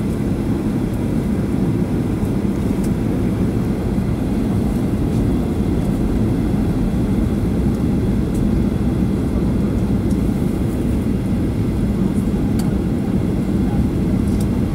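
Steady cabin noise inside a jet airliner descending on approach: a constant low rumble of engine and air noise that does not change.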